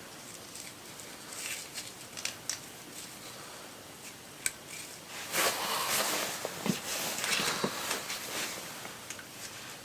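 Light metal clicks and ticks from hand work on drum brake parts, then about three seconds of denser scraping and rattling around the middle as the parts are worked loose.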